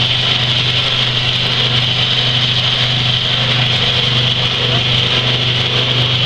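Vibrating flour sifter machine running: its vibration motor gives a steady, loud low hum, with a constant higher hiss above it.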